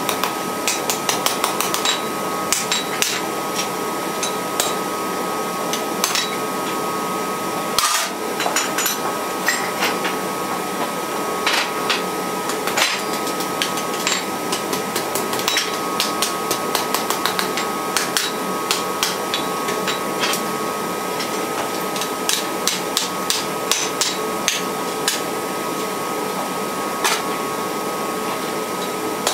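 Hand hammer striking red-hot steel on an anvil, forging a decorative leaf: sharp ringing blows in irregular runs with short pauses between them, over a steady background hum.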